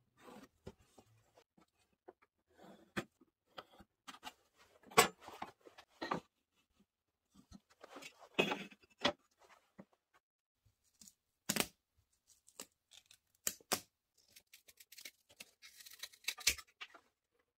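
Scattered sharp clicks and light knocks as pieces of wood and a metal square are handled on a wooden board. Near the end, scissors snip through the bristles of a paintbrush in a quick run of short cuts.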